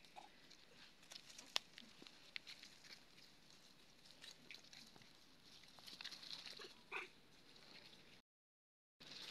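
Young macaques scampering over dry leaves and twigs: faint rustling and scattered light clicks, with one short monkey call about seven seconds in. The sound drops out completely for under a second near the end.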